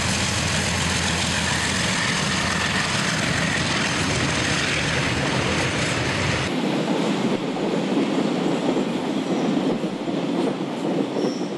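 Diesel freight train passing: the locomotives' engines run with a low drone as the train pulls by. About halfway through the sound changes abruptly to the steady clatter of container wagons rolling past close by, with faint wheel squeals near the end.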